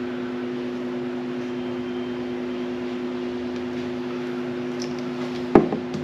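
Steady electrical hum from a running motor or appliance, with one sharp click about five and a half seconds in.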